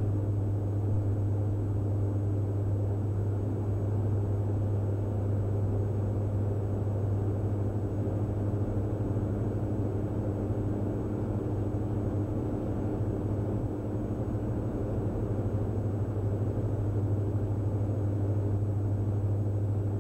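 Steady in-flight drone of the Diamond DA42 NG's two turbo-diesel engines and propellers at cruise, heard inside the cockpit as a strong low hum under a broad, even rush of noise.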